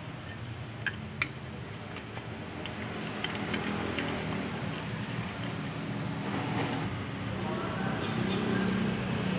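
A few light clicks and clinks from handling a ceiling fan's metal motor housing and canopy, over a steady background noise that slowly grows louder.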